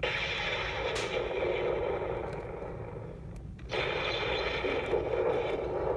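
Electronic sound effects from a toy Thor Stormbreaker axe's small speaker: rumbling, crackling thunder-and-blast noise in two bursts, the second starting about three and a half seconds in.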